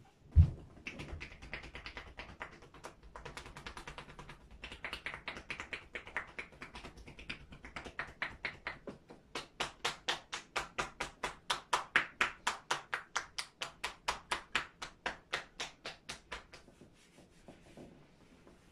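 Percussion massage: hands rapidly striking a man's back and shoulders through his shirt, a steady patter of about four to five slaps a second that turns crisper and louder about halfway through and stops a couple of seconds before the end. A single low thump just after the start is the loudest sound.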